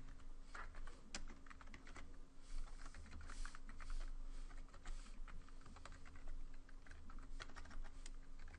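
Typing on a computer keyboard: irregular keystrokes, some in quick runs, over a faint steady hum.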